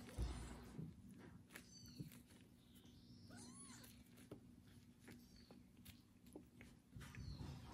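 A young kitten gives one faint, arching meow about halfway through, with a few fainter short high mews around it. A soft low thump comes just at the start.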